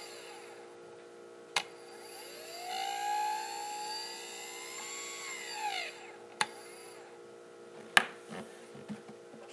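Small brushless outrunner motor under an Arduino-driven electronic speed controller. It whines down to a stop, then after a click spins up again with a rising whine, holds speed for a few seconds and winds down to a stop. A thin, very high electronic whine from the speed controller runs while it is driven, and there is a sharp click about eight seconds in.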